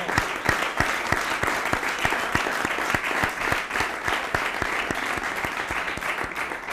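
Studio audience applauding, with strong claps falling into a steady beat of about three a second.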